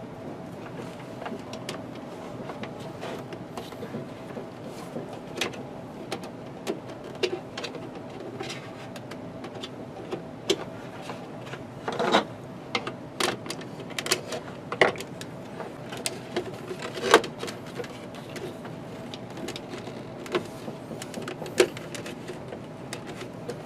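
Irregular small clicks and taps of video cable connectors and wiring being handled and plugged into a switch box, with a steady hum underneath.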